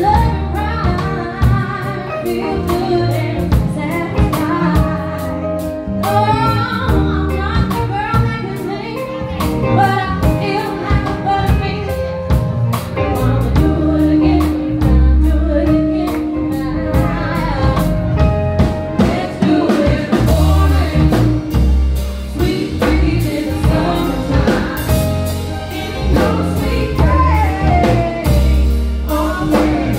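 Live band music: a woman singing lead over electric guitar, electric bass and a drum kit.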